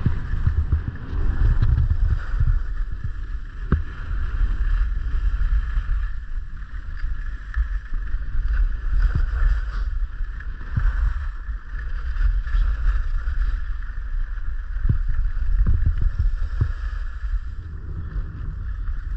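Wind buffeting a skier's camera microphone as a steady low rumble, over the hiss of skis running on groomed snow, with a knock now and then.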